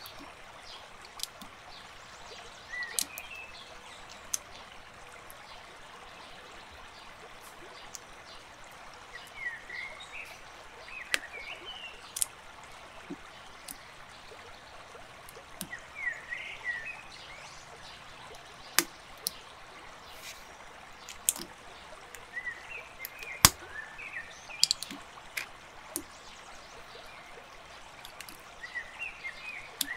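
Steady rushing noise like a running stream, with small clusters of short chirps every few seconds and scattered sharp clicks, one louder click about two-thirds through.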